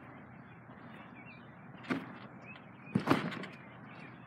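Two thumps of a person bouncing on a trampoline, about a second apart, the second louder and a little longer, over a steady background hiss.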